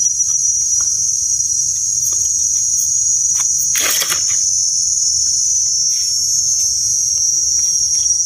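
Steady, loud, high-pitched drone of insects in the forest. About four seconds in there is a brief scraping noise, with faint clicks from digging in soil and leaf litter.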